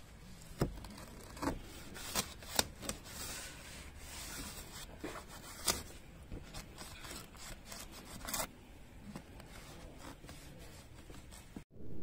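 Microfiber car-wash mitt rubbing and wiping over a wet car's body panel and front grille, with scattered sharp clicks as it catches on the trim.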